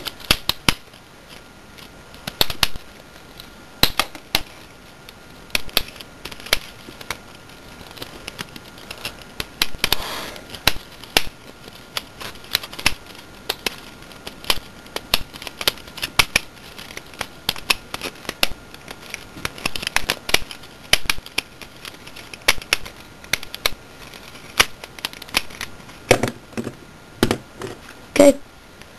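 Plastic prism segments of a Rubik's Twist (Rubik's Snake) puzzle being twisted rapidly through a solve: an irregular run of sharp clicks as the segments snap into position.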